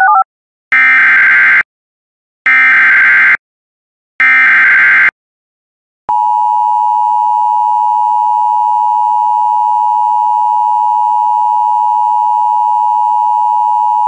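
Emergency Alert System SAME header: three short bursts of data screech, each about a second long with a second between them. About six seconds in comes the EAS attention signal, a steady two-tone 853/960 Hz alarm lasting about eight seconds, which marks the start of a new emergency alert.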